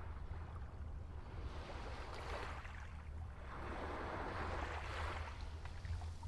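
Small waves lapping and washing up a sandy shore in soft swells a couple of seconds apart, over a steady low rumble.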